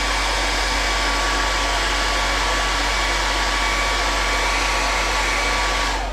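Hand-held hot-air blower running steadily with a faint whine, drying a test dab of tinted paint resin; it switches off right at the end.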